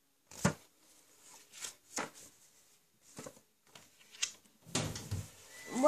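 Handling noise from a DVD box set being moved about: a few light knocks spaced about a second apart, then a longer rubbing rustle near the end.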